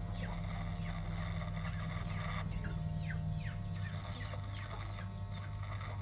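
Corded electric hair clipper humming steadily as it trims a beard along the jaw and neck. Over it, a bird's short chirps fall in pitch, repeating about every half second.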